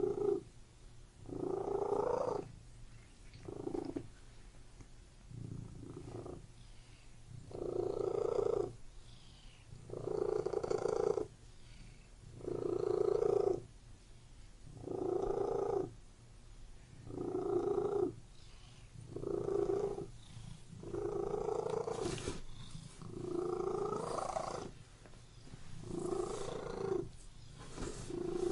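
Domestic cat purring in a steady rhythm, each breath bringing a louder phase of about a second, roughly every two to two and a half seconds, with softer purring between.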